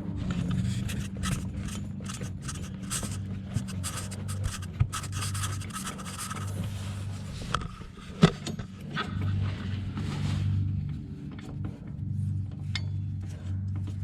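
Irregular scraping, rubbing and clicking of hand tools and parts on a truck's front shock mount as a new shock is fitted, with one sharper click about eight seconds in. The scraping thins out after about ten seconds, and a steady low hum runs underneath.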